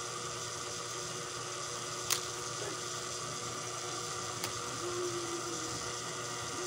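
Steady electrical hum and hiss, with a single sharp click about two seconds in and a fainter click a couple of seconds later.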